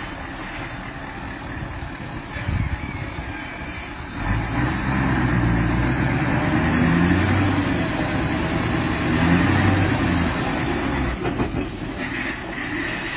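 Truck engine running under load while the truck's tipping body tilts its rack of cages to dump live poultry, growing louder about four seconds in and easing off near the end. A few knocks sound shortly before the louder stretch and again near the end.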